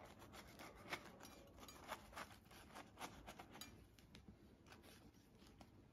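Near silence, with a few faint soft clicks and scrapes as a knife cuts through a soft sesame burger bun.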